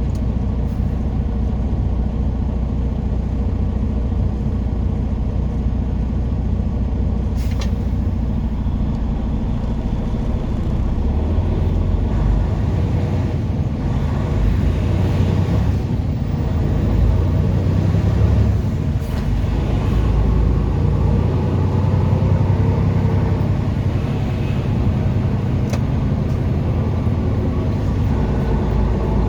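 Semi truck driving, heard from inside the cab: the engine and drivetrain run as a steady low rumble with road noise, growing louder for a stretch in the middle. A few sharp clicks fall at three points.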